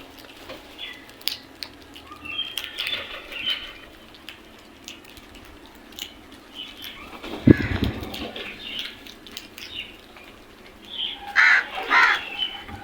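Crows cawing: scattered fainter calls, then two loud harsh caws near the end. A single low thump about halfway through.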